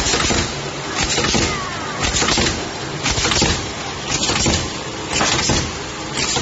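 HG 818 rat trap board making machine running through its cycle: a steady low hum with a noisy burst about once a second as the glue boards are processed and carried along the conveyor.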